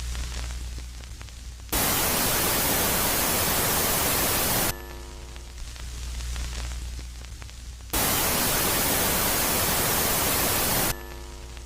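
Electronic static presented as the sound of Jupiter's moon Megaclite, switching abruptly between a loud hiss and a quieter phase with a low hum. The loud hiss comes in twice, about 3 seconds each time, starting about 2 seconds in and again about 8 seconds in.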